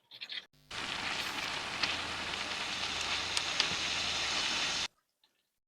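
Mirchi bajji (batter-coated chillies) sizzling in hot oil: a steady sizzle with a few sharp pops. It starts about a second in and stops abruptly near the end.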